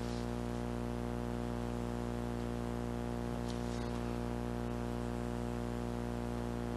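Steady electrical hum and buzz with many evenly layered overtones and a faint hiss, unchanging throughout, with a couple of faint soft ticks.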